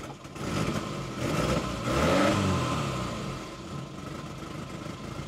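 1988 Austin Maestro engine idling cold just off choke, running chuggy and uneven, its note rising and falling about two seconds in before settling. The owner thinks the ignition timing is off.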